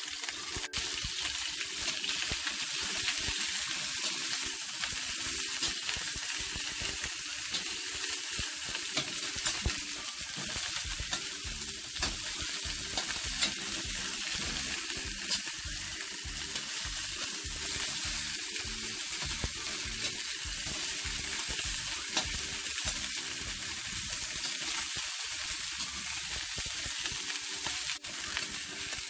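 Chicken drumsticks pan-frying in hot oil, left unmoved to brown: a steady sizzle with many small crackles and pops.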